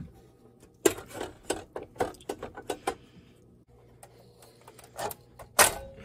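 Metal clicks and clatter from an air-conditioning disconnect box being opened and its pull-out disconnect handled to cut power to the air handler: a quick run of knocks and rattles, then two sharper clicks near the end, over a faint low hum.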